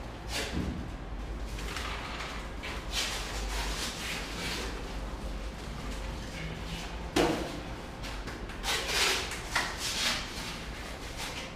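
Building-site handling noises: irregular scrapes and knocks of tools and materials, with a sharp knock about seven seconds in and a cluster of scrapes soon after.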